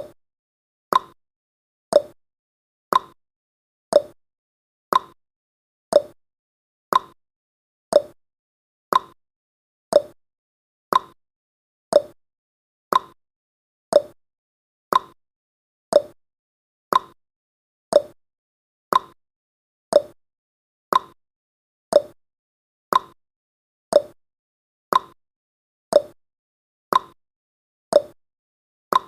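Countdown timer's clock-tick sound effect, one short tick each second, alternating slightly higher and lower like a tick-tock.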